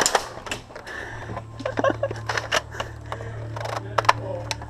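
A string of sharp, irregular clicks and knocks, with a low steady hum setting in about a second in.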